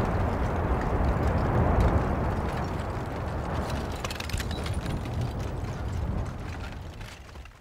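Deep rumbling of a volcanic eruption with a fine crackling of small pops about halfway through. The rumble slowly fades and drops away near the end.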